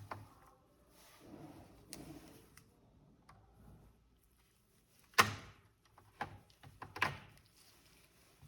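Hands working on a laptop: soft scraping, then three sharp clicks and knocks about a second apart in the second half, the first the loudest.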